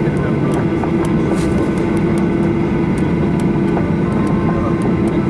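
Cabin noise of a jet airliner taxiing: the engines' steady drone at idle with a constant hum, and scattered faint clicks and rattles.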